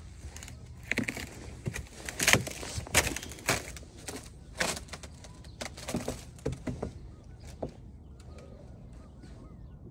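Footsteps crunching through snow at an uneven walking pace, about one or two steps a second, that stop after about seven seconds.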